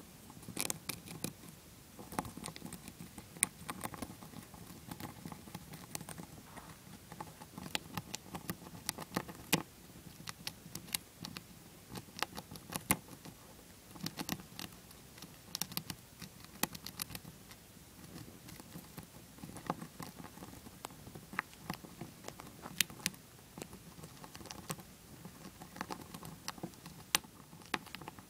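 Dwarf hamster gnawing a shelled peanut held in its paws: close, rapid, irregular small clicks of its teeth on the nut, coming in clusters.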